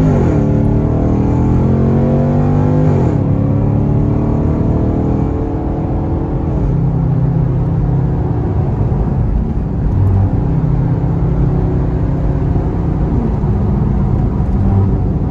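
Chevy SS sedan's 6.2-litre LS3 V8 accelerating hard through the gears: the engine pitch climbs, drops at upshifts about three and six and a half seconds in, then runs steadily at speed with another small drop near the end.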